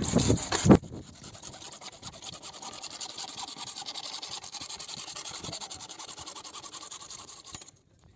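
Hacksaw sawing through a black plastic drainage pipe by hand, an even run of rapid scraping strokes that stops abruptly near the end. A louder noise fills the first second before the sawing settles in.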